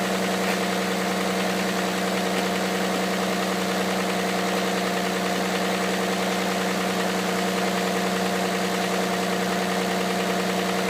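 Hyundai Santa Fe CM's 2.7-litre G6EA V6 idling steadily while cold, with a knock running through the idle.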